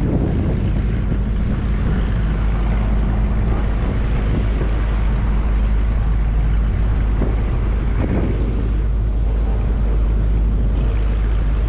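An engine running steadily with a constant low hum, with wind buffeting the microphone.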